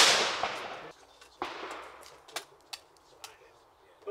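Side-by-side hammer shotgun fired at clays: a sharp report at the very start that rings and dies away over about a second. A fainter bang follows about a second and a half in, then a few small scattered knocks.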